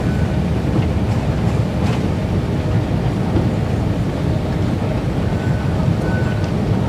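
Escalator running steadily: a constant low rumble with a few faint clicks. Two brief faint high tones come near the end.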